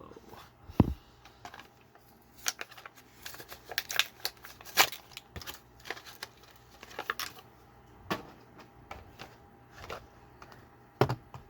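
Toy packaging being handled and opened by hand: irregular plastic clicks, taps and crinkles, with a sharp knock about a second in.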